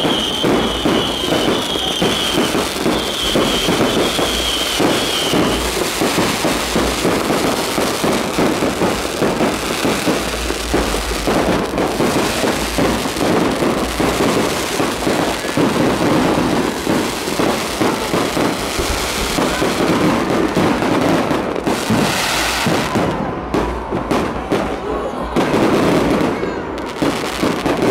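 Fireworks display: aerial shells bursting overhead in a rapid, continuous barrage of bangs and crackling. A high wavering whistle runs through the first five seconds or so.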